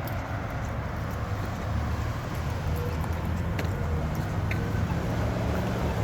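Road traffic at an intersection: cars passing with a steady low rumble of engines and tyres, and a couple of faint clicks near the middle.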